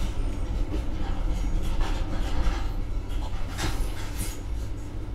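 Old truck driving, heard from inside its enclosed rear compartment: a steady low rumble, with a few sharp knocks and rattles from the body.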